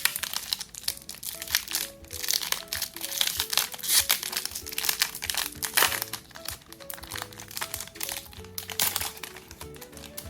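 Foil Pokémon booster pack wrapper crinkling and crackling as it is handled and opened, over background music with a simple melody.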